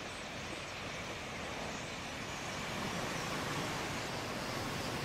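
A steady din of a large flock of birds chattering in a tree, over a low rumble of traffic.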